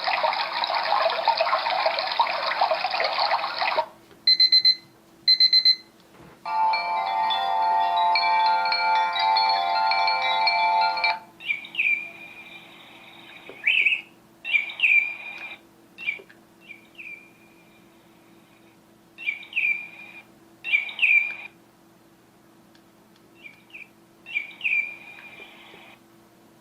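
A run of alarm sounds played one after another: a dense, noisy ringing for about four seconds, two pairs of short high beeps, a chiming melody, then recorded birdsong-like chirps in short bursts.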